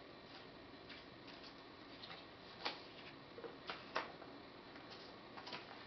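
Faint paper handling as a folded fold-out paper guide is opened out on a table: soft rustles and small paper taps, with a few sharper snaps between about two and a half and four seconds in.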